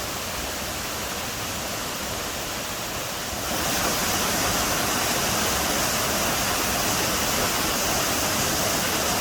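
Waterfall rushing steadily, the sound of falling water stepping up louder about three and a half seconds in.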